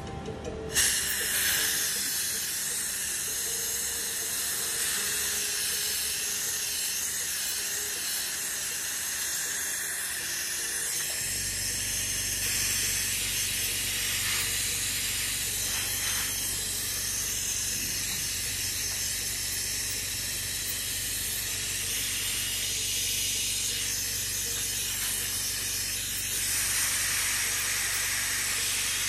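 Steady hiss of blowing air that starts abruptly about a second in, with a low hum joining partway through.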